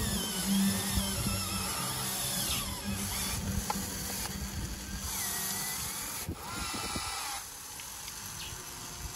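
Scale-model RC hydraulic excavator working its arm and bucket: a mechanical hum with whining tones that glide up and down and hiss that starts and stops as the hydraulics move.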